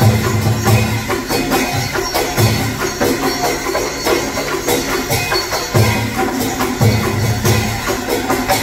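Traditional Vietnamese ensemble music accompanying water puppetry: busy percussion with many quick strikes over low drum beats that come every second or so.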